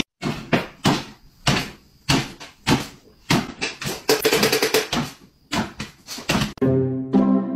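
A small dog bouncing on its hind legs on a wooden floor: sharp taps and thumps about two or three a second as its paws land, with a quicker patter about halfway through. Music comes in near the end.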